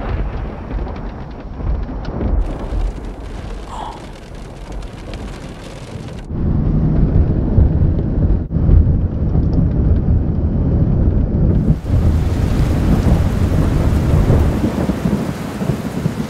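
Thunderstorm sounds: a heavy low rumble with rain, changing abruptly several times as short clips are cut together.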